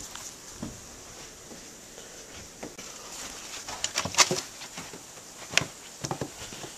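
Footsteps in fresh snow on outdoor steps: a series of short, irregular crunches, the loudest about four seconds in and again about five and a half seconds in.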